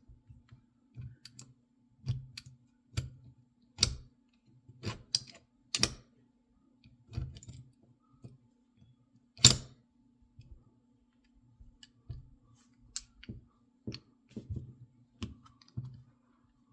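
Irregular metallic clicks and taps from a Mul-T-Lock C-series padlock being handled and worked on while it is taken apart, with one sharper click about nine and a half seconds in.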